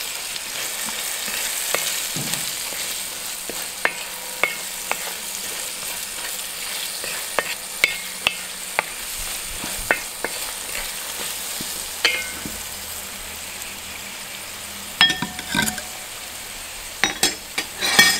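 Vegetables sizzling in a brass pan as they are sautéed with sambar powder and turmeric, stirred with a wooden spatula. The spatula knocks and scrapes on the metal now and then, with a cluster of louder knocks near the end.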